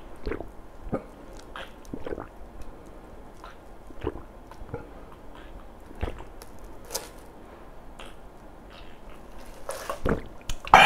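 A person drinking an iced drink from a large glass: repeated gulps and swallows with small wet clicks, close to the microphone, louder near the end as the glass comes down.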